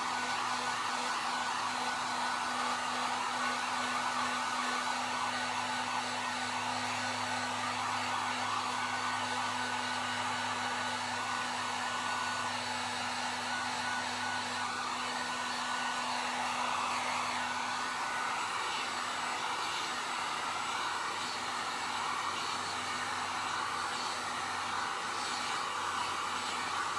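Harbor Freight electric heat gun running steadily, its fan blowing hot air with an even rushing noise and a low motor hum, drying acrylic paint.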